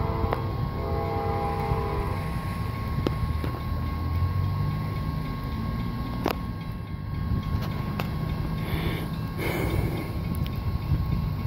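Distant freight locomotive horn sounding a chord of several notes, one long blast that ends about two seconds in, over a steady low rumble from the approaching train.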